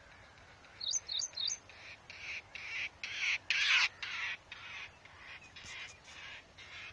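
Birds calling: three quick rising chirps about a second in, then a run of short, rough calls repeated several times a second, loudest midway.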